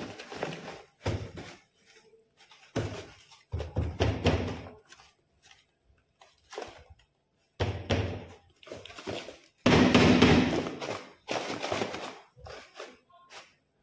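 A string of irregular thuds and knocks, with rustling and scraping in between, as household things are handled and set down. The loudest burst comes about ten seconds in.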